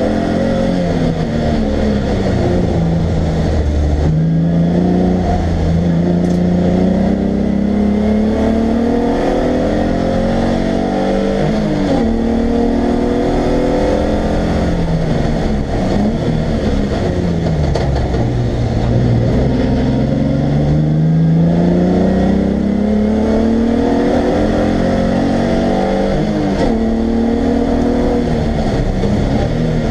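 A race car's engine, heard from inside the car, pulls hard at near-full throttle. Its pitch climbs steadily for several seconds at a time and drops back repeatedly, then climbs again. Near the end it falls as the throttle eases.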